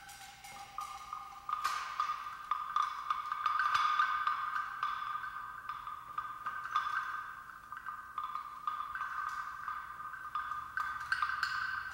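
Metal percussion instruments being struck and left to ring: a steady high ringing with many light, quick taps over it, swelling about a second and a half in.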